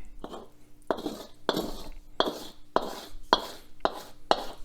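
A kitchen utensil clinking and scraping against a dish or pan in an even rhythm, about two strikes a second.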